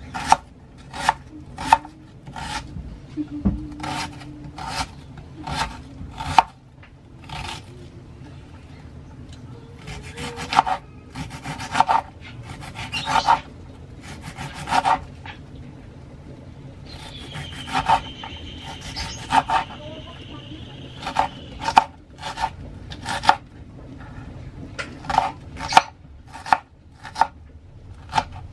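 Kitchen knife dicing an onion on a bamboo cutting board: sharp knocks of the blade on the wood, in irregular runs of a few strokes a second with short pauses between them.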